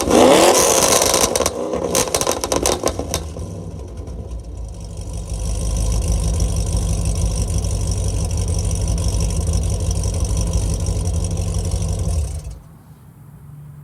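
2009 Pontiac G8 GT's 6.0-litre L76 V8, on longtube headers with no catalytic converters and a shorty exhaust, coming off a rev into a rapid run of exhaust pops and crackles on deceleration, the effect of a tune set to pop on decel. After about three seconds the crackling stops and the engine settles to a steady idle, which cuts off abruptly about twelve seconds in.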